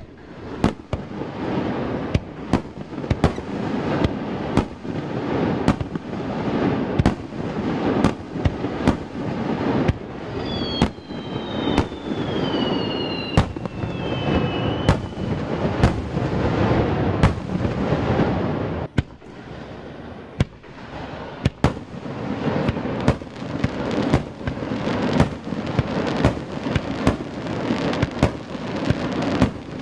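Aerial fireworks shells bursting in quick succession, sharp bangs about one to two a second over a continuous rumbling crackle, with a brief lull about two-thirds in. A few falling whistles sound about halfway through.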